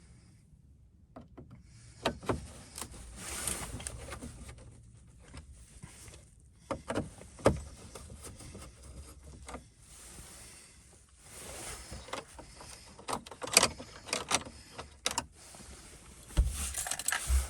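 Irregular clicks, knocks and rustling of hands handling tools and parts around the car's dashboard during a radio install, with no steady rhythm.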